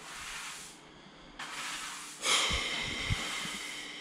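Flat floor mop swishing in strokes across a tiled floor, with a few light knocks of the mop head about halfway through.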